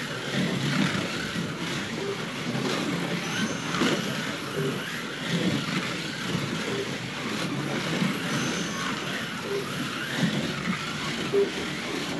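Electric Can-Am slot cars racing round a routed wooden slot track, their small motors whining and rising and falling in pitch, with short beeps now and then and voices in the background.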